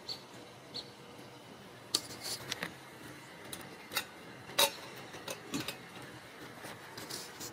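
Ragdoll kittens at play, with scattered light clicks, taps and knocks as they bat toys and scramble over things, bunched mostly in the middle and later part. There are two brief faint high chirps near the start.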